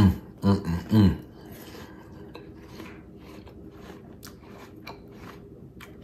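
A man chewing a bite of crisp green apple with his mouth closed, soft crunches running on throughout. In the first second he gives three short hummed 'mm' sounds.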